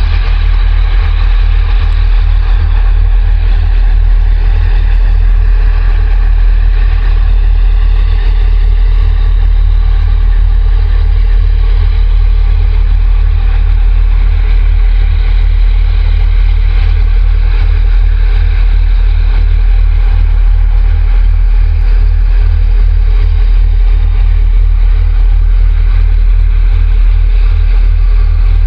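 Steady, loud low rumble of a large container ship's diesel engine and its harbour tug's engines as they pass close by at slow harbour speed.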